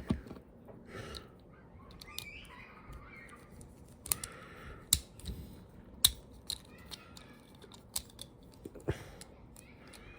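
Small hard plastic Beyblade top parts clicking and tapping together as they are handled and tried for fit, with a few short scrapes. The clicks are irregular and scattered.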